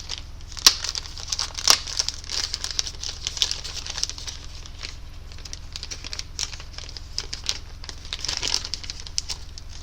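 Plastic packaging crinkling and rustling as it is handled, with scattered sharp clicks, the two loudest about two thirds of a second and a second and a half in.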